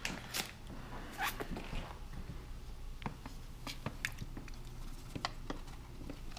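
A cat crunching dry food: faint, irregular crunches and clicks, a few a second.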